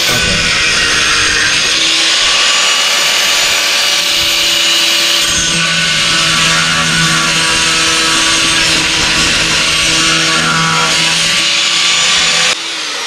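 Angle grinder with a cut-off disc running steadily as it cuts away part of a plastic car rear bumper around the exhaust opening. The motor's whine holds over the grinding noise, then cuts off sharply near the end.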